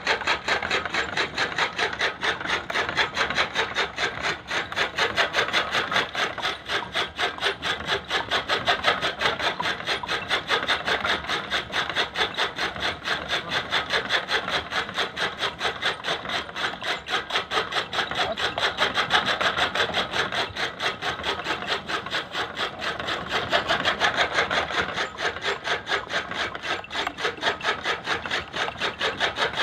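Bull-driven chaff cutter chopping fodder, its blades slicing in a fast, even rhythm of several strokes a second.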